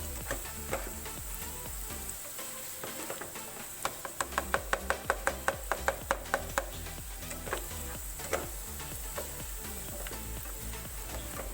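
String beans sizzling in a frying pan while being stirred, with sharp clicks of the spatula against the pan. About four seconds in comes a quick run of taps, about five a second, for roughly three seconds.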